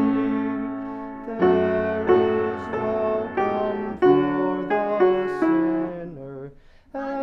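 Piano playing a hymn in struck chords, about one or two a second, breaking off near the end. It stops because the player cannot transpose the hymn on the fly, and the hymn is started over.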